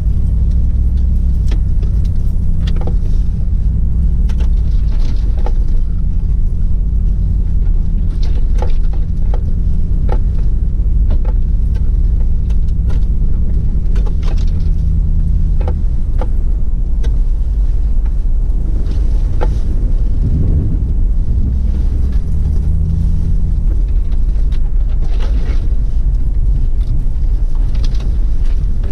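Toyota 4Runner's 4.7-litre V8 engine running steadily at low revs, with scattered clicks and rattles from the truck moving over a rough trail.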